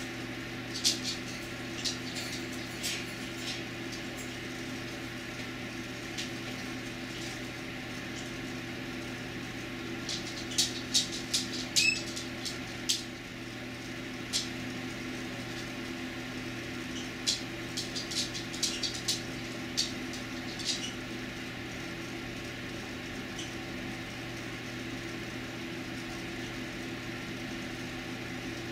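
A steady low machine hum, with three scattered clusters of short, sharp high ticks.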